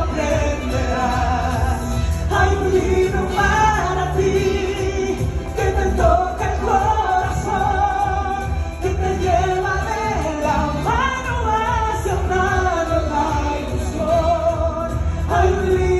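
A Spanish-language song: a singing voice over instrumental backing, playing continuously.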